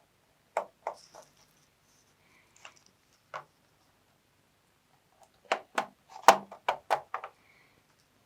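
Sharp plastic clicks and taps as the memory compartment cover on the underside of a Toshiba Satellite C850 laptop is worked open: a few single clicks, then a quick run of about eight clicks near the end.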